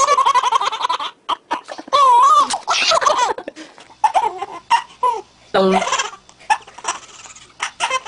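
Babies laughing hard, in repeated high-pitched peals of laughter with short breaks between them.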